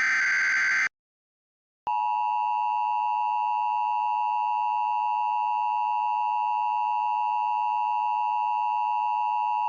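A short burst of Emergency Alert System digital header tones ends about a second in. After a second of silence, the steady EAS attention tone sounds for about eight seconds. Together they signal that an emergency alert is being issued.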